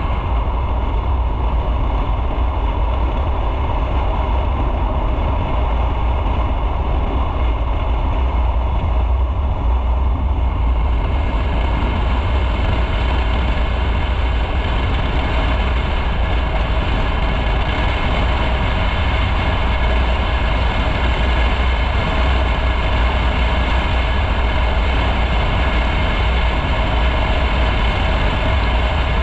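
Motorcycle on the move: a steady, loud low rumble of engine and riding noise, with a little more hiss coming in about ten seconds in.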